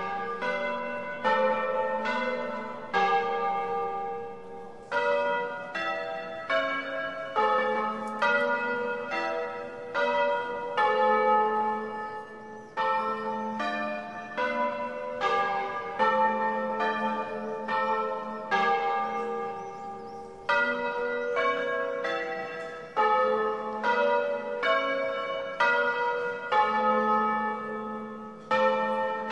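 Church bells rung in the Bolognese manner: several bells of different pitch strike one after another, about one to two strokes a second, each stroke ringing on into the next.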